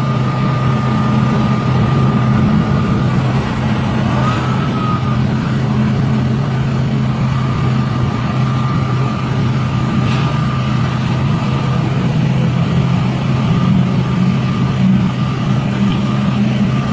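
An excavator's diesel engine runs steadily under load, a low drone with a thin, steady high whine above it. The whine drops out for a few seconds in the middle, and a short rising-and-falling whine comes about four seconds in.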